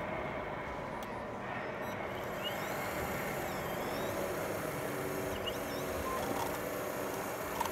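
Komatsu 270 RC excavator model working, its motors whirring in a steady hum with faint tones that shift and step as the boom and bucket move.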